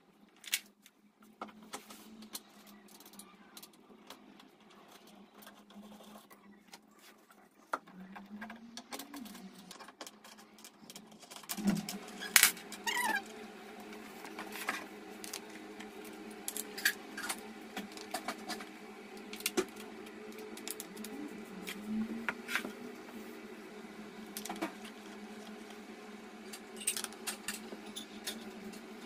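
Scattered clicks, knocks and rattles of a cat scratching post's parts and a hex key as the post is screwed back together. A steady low hum runs underneath from about a third of the way in.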